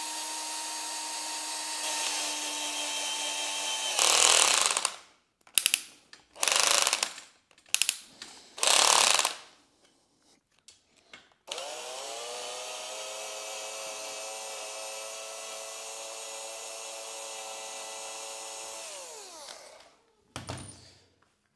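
Cordless drill-driver turning screws into aluminium extrusion profiles. It runs steadily for about four seconds, then gives four short trigger bursts. After a pause it runs steadily again for about eight seconds, winding down in pitch as it stops, with one brief blip near the end.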